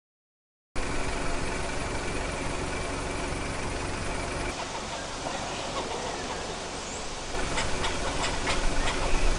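A vehicle engine running under a steady rushing noise, starting suddenly after a moment of silence. The sound shifts abruptly twice, and scattered rattling clicks come in over the last two seconds.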